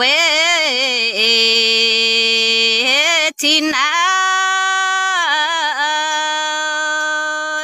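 A woman singing a Red Dao (Iu Mien) folk song solo, drawing out long held vowel notes with a wavering vibrato. The voice breaks off briefly about three seconds in, then holds another long note that dips in pitch and settles lower.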